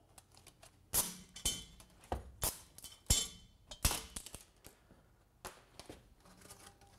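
Straps being unhooked from a Hill-Rom hospital bed's frame: a string of irregular clicks and knocks from hooks and fittings against the bed, thinning out near the end.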